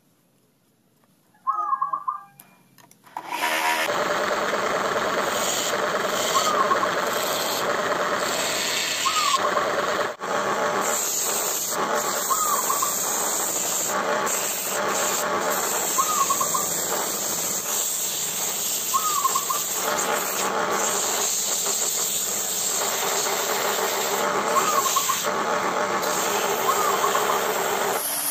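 Homemade wood lathe driven by a salvaged water-pump motor starts about three and a half seconds in and then runs steadily with a broad hiss. A bird gives short high calls a few times, once in the quiet before the motor starts and then over the running lathe.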